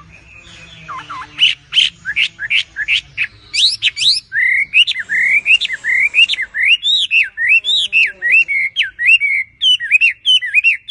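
A songbird singing a long, varied song. It opens with a run of quick chirps and then moves into repeated up-and-down sliding whistles, about two to three a second.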